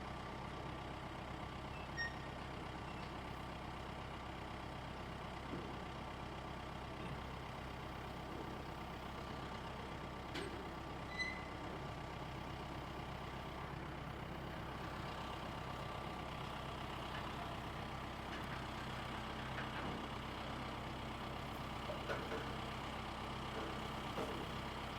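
Truck engine running steadily at low speed while it is backed into position, with a few faint ticks.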